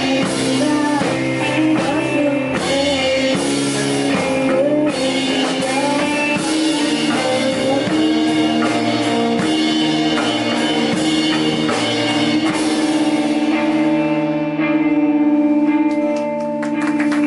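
Rock song with guitar, drums and a singer; about six seconds in the melody gives way to a long held final chord that runs on until just before the end.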